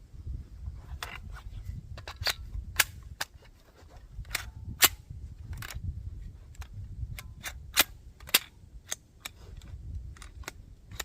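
Single 9mm pistol shots at an uneven pace, a dozen or more sharp reports of varying loudness, from a 3D-printed MAC-11-style pistol being test-fired, over a steady low rumble.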